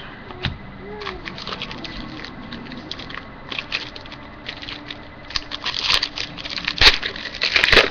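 Crinkling and crackling of a foil trading-card pack wrapper as cards are handled, with the crackles getting denser and louder from about five seconds in.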